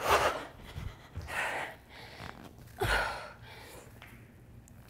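A woman panting hard from doing burpees: three heavy breaths about a second and a half apart, the first the loudest.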